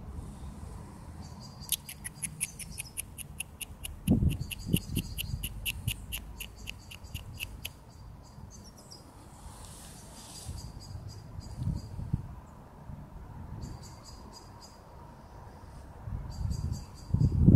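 Crickets chirping in fast, evenly spaced high-pitched pulses, loudest in a run of about six pulses a second lasting some six seconds, with fainter runs later. Low thumps and rumble come in about four seconds in and again, loudest, near the end.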